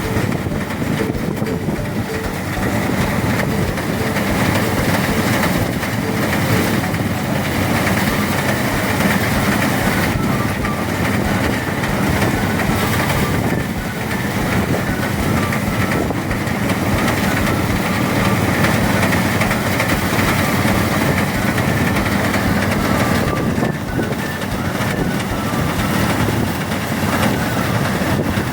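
Engine-driven rice threshing machine running steadily, making a loud, continuous mechanical din.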